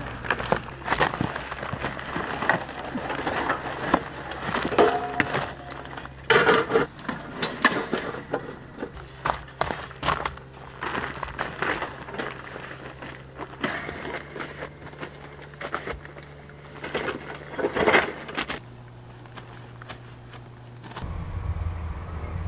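Handling noises as a portable kerosene camping heater is lifted out of its padded carry bag and moved into the tent: scattered knocks, rustles and bumps. A low rumble sets in near the end.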